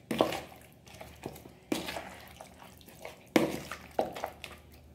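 A spoon stirring chicken pieces through a thick yogurt-and-spice marinade in a plastic bowl: several wet, squelching strokes with the spoon knocking and scraping on the bowl.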